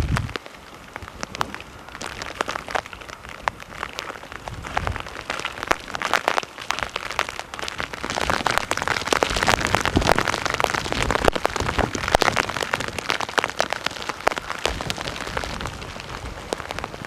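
Hurricane rain falling: a steady hiss dotted with many sharp ticks of close drops, getting heavier about eight seconds in.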